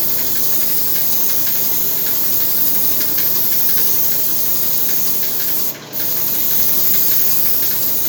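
Aerosol non-stick cooking spray hissing steadily as it coats a cake pan so the cake won't stick, with a brief break a little before six seconds in.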